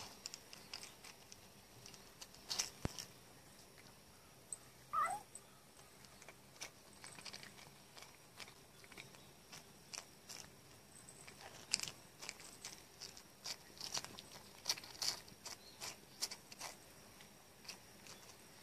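A cat licking and nibbling the salt off a salted rice cracker (senbei): faint, irregular wet clicks and small crunches, with a short rising chirp about five seconds in.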